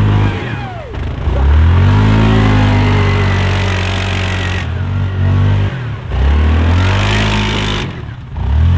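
Yamaha Grizzly 700 ATV's single-cylinder engine revving hard in repeated bursts of throttle while being ridden. The pitch climbs sharply about a second in, again around six seconds in and once more near the end, falling back in between.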